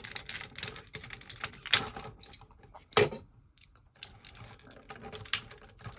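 Hard plastic parts of a toy robot clicking and clattering as it is handled and its weapons are detached, with a few sharper snaps, the loudest about three seconds in.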